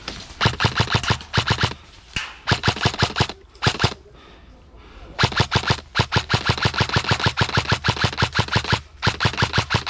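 Airsoft guns firing rapid strings of shots, about eight a second: a few short strings, a pause of about a second, then a long string lasting nearly four seconds and another near the end.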